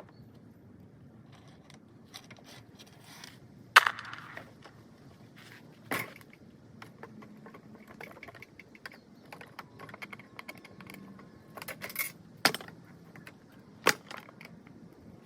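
Clicks and clatter of small hard objects being handled, with a handful of sharp knocks, the loudest about four seconds in and others near six, twelve and fourteen seconds.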